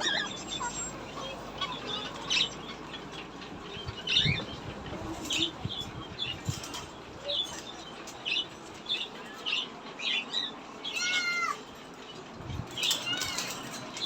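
Small caged pet-shop animals calling: a string of short, high cries about every half second, with a couple of longer falling calls about eleven seconds in, over a steady background hum.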